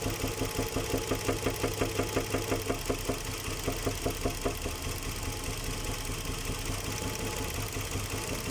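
Nissan Murano Z50's 3.5-litre V6 running at idle with a loud, regular knock of about five strikes a second, the sound of a worn connecting-rod bearing (rod knock). About halfway through the knocking fades, leaving the engine running steadily.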